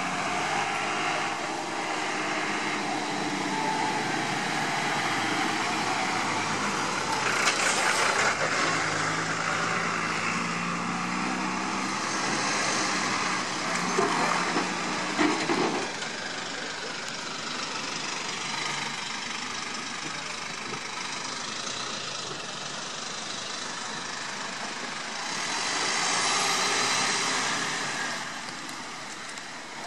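Heavy emergency-service trucks and a van driving past slowly: a truck's diesel engine running as it pulls away, then more vehicles going by with a few short rattles. The loudest pass comes near the end, a van towing a loaded trailer, with tyre and road noise.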